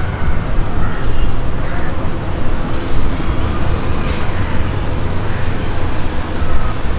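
Steady low rumble of motor vehicles and street traffic.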